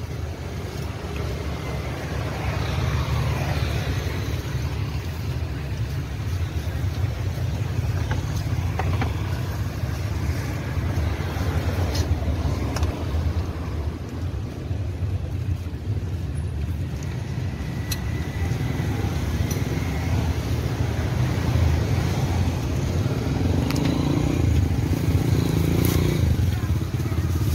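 Roadside street ambience: a steady low rumble of passing motor traffic that swells a little near the end, with a few light clicks over it.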